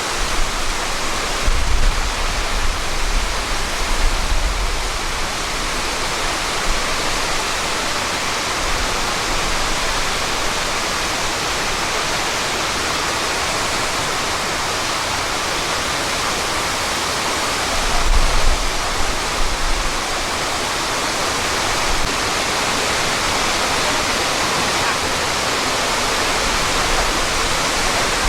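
Shiraito Falls, a wide curtain waterfall, rushing with a steady, dense roar of falling water. Low rumbles on the microphone come up twice, near the start and about two-thirds through.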